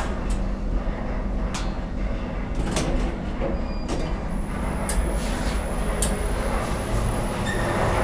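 Inclined elevator cabin with a steady low rumble and a few sharp clicks as it arrives and its doors slide open. A thin high whine starts about halfway through, and the station's noise grows near the end.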